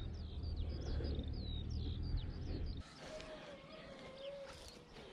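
Small birds chirping, a quick run of short, high, falling notes over a low rumble. Nearly three seconds in the rumble cuts off suddenly, leaving a quieter stretch with a faint wavering tone and a few more faint chirps.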